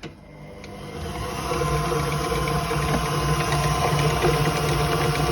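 Electric mixer switched on, its motor speeding up over about the first second and a half and then running steadily, beating shortbread dough.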